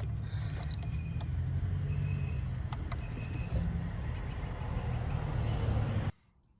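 Steady low engine-like rumble with a few light clicks and knocks, cutting off abruptly near the end.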